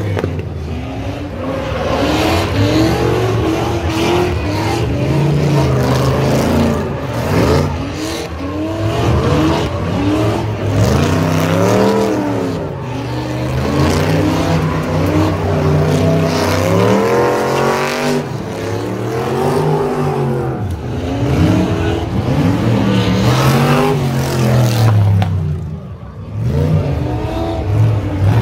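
Drift car's engine revving hard, its pitch climbing and dropping again and again every second or two as the throttle is worked, over the hiss of spinning, smoking tyres.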